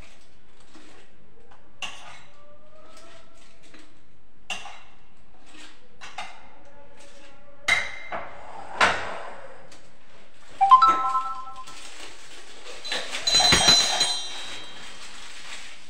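A spatula clinking and scraping against a bowl while buttercream is scooped into a piping bag: a few scattered clinks, one ringing briefly about ten and a half seconds in, then a louder clatter near the end as the filled bag is set down among the utensils.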